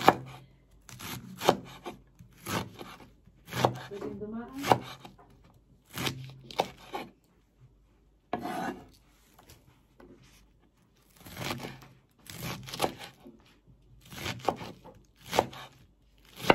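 Kitchen knife cutting banana blossom against a cutting board: clusters of sharp chopping strokes about once a second, with a couple of short pauses.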